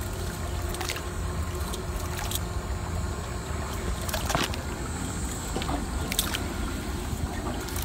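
Nylon bottom gill net paying out of the hand, with scattered soft ticks and light trickling sounds over a steady low wind rumble on the microphone.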